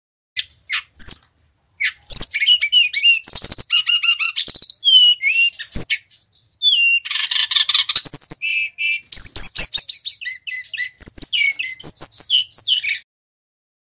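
Male brown-chested jungle flycatcher in full song: a few short high notes, then a long, rapid, unbroken run of varied whistles, slurred notes, trills and buzzy phrases that stops abruptly near the end.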